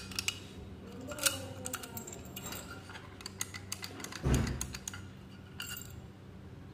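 Brass seven-lever padlock being handled: a string of sharp metallic clicks as the key is worked in the lock, then keys clinking in the hand, with a dull thump about four seconds in.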